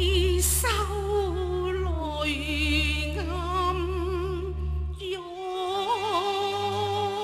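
Cantonese opera music: a melodic line with heavy vibrato over held low bass notes, the low notes changing about five seconds in.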